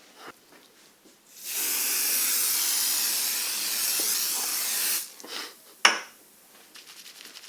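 A spray hissing steadily for about three and a half seconds, starting about a second and a half in, followed by one sharp click about a second after it stops.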